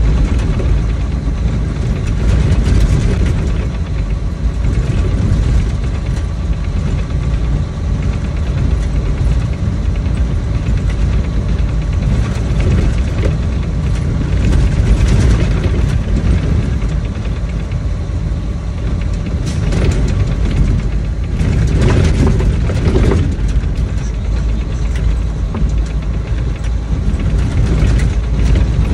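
Truck engine running with a steady, loud low rumble.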